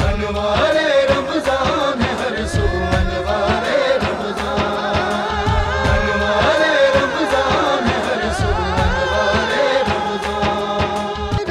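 Music: a wavering sung vocal line over a beat of percussion strikes.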